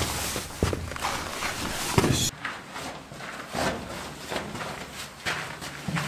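Footsteps scuffing and thudding on the sandy, soft volcanic-rock floor of a carved tunnel, irregular at first, then quieter, spaced steps after an abrupt change about two seconds in.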